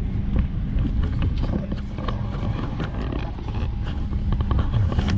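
Airliner cabin noise: a steady low hum from the aircraft's systems, with scattered knocks and clicks of passengers moving about and faint voices.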